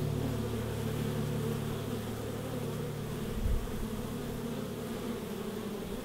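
Honey bees humming steadily at a hive entrance, with a brief low bump about halfway through.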